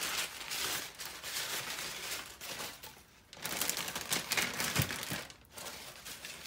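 Zip-top plastic bag and paper towel crinkling and rustling as raw chicken drumsticks are patted dry and put into the bag, in irregular bursts, with a soft thump just before five seconds in.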